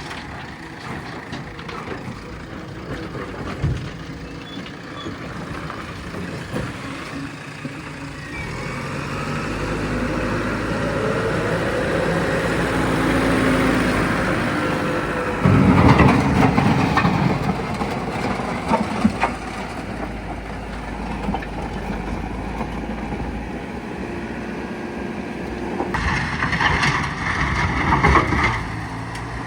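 Diesel engine of a JCB backhoe loader working, revving up over several seconds as it takes on load. A loud, heavy burst of noise comes about halfway through, and a rougher stretch comes near the end.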